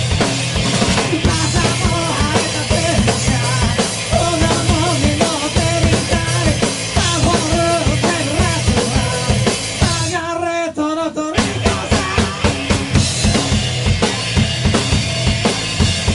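A two-piece rock band playing live: electric guitar and a driving drum kit, with a male voice singing. Almost everything stops briefly a little after ten seconds in, then the band comes back in.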